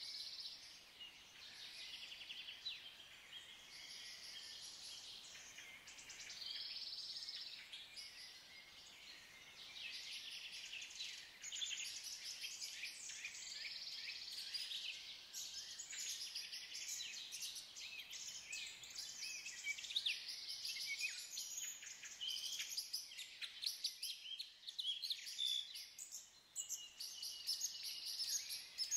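Woodland songbirds singing: several birds at once, a dense run of rapid high chirps and trills that grows busier from about a third of the way in, over a faint steady background hiss.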